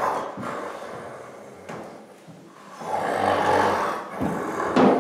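A person snoring in imitation of the sleeping wolf: two long snores, one at the start and one about three seconds in.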